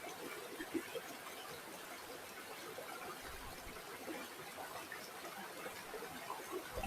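Shallow river water flowing and trickling over stones, a steady rush with small bubbling splashes.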